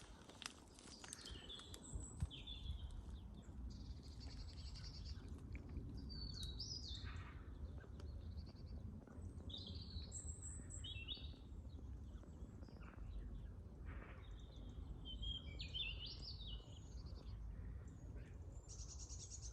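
Small woodland birds singing and calling in short, scattered high phrases, over a low steady rumble.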